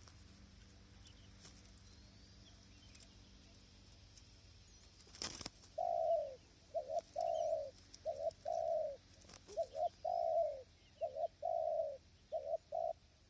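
Spotted dove cooing: a run of low coo notes in short groups that starts about halfway through, with a sharp click just before it.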